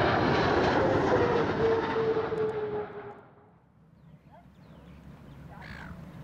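Twin-engine jet airliner (a Boeing 777) flying low on landing approach, with steady engine noise and a whine that slowly falls in pitch as it passes. After about three seconds it fades sharply to a faint outdoor background with a few small chirps.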